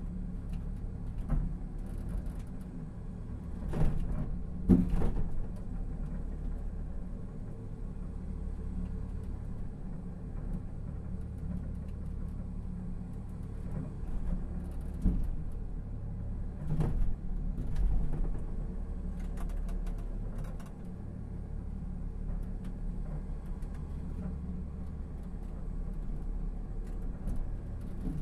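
Low, steady rumble and vibration of a sky capsule, a small autonomous rail car running along an elevated track, with a few sharp knocks about four to five seconds in and a few more around the middle.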